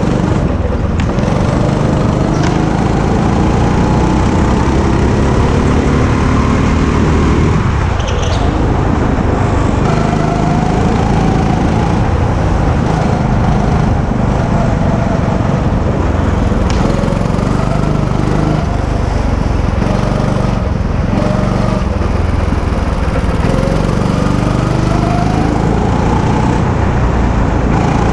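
Go-kart engine heard from on board, running continuously with its pitch rising and falling as the kart speeds up and slows through the corners.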